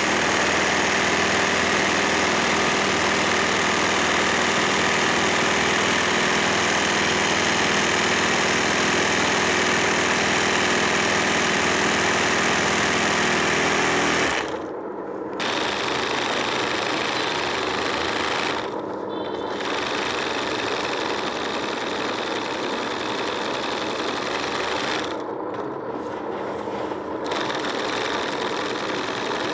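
Electric sewing machine running steadily as it stitches free-motion machine embroidery (kadai) on a suit fabric held in a hoop; the stitching briefly drops off a few times in the second half.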